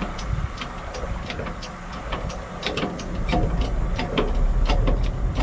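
Irregular sharp metal clicks and ticks, a few a second, from tools being worked at a semi-trailer's wheel during bearing and brake-shoe adjustment, over a steady low hum.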